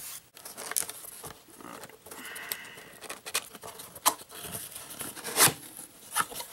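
Hands working open a taped cardboard box: fingers scraping, tapping and prying at the flaps and tape in a string of short, sharp clicks and scrapes, with a louder snap a little after five seconds in.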